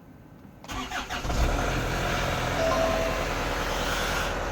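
Hyundai Santa Fe 2.2 CRDi diesel engine cold-started: a short burst of cranking about a second in, then the engine catches and settles into a steady idle.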